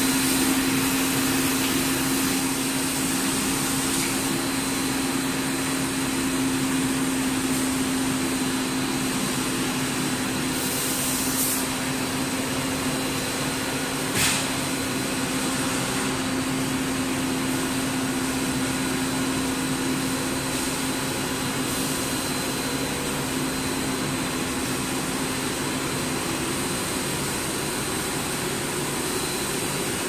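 HIPS refrigerator-sheet extrusion line running: a steady mechanical drone with a constant low hum and faint high whines. A short hiss comes about eleven seconds in and a single sharp click about fourteen seconds in, and the hum fades near the end.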